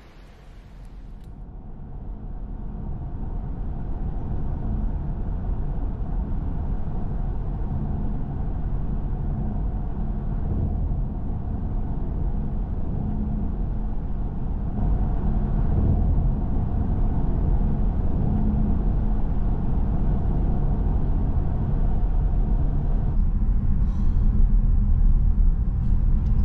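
Car cabin noise while driving: a steady low rumble of engine and tyres on the road, fading in over the first few seconds. A few faint clicks near the end.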